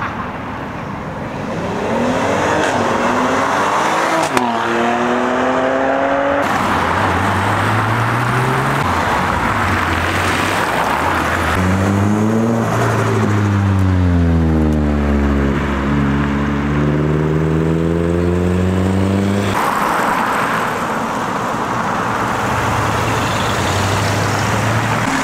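Car engines accelerating away one after another, in short clips joined by abrupt cuts. From about seven to twenty seconds in, one engine revs up hard and rises in pitch, the loudest part. After that a lower, steadier engine sound takes over near the end.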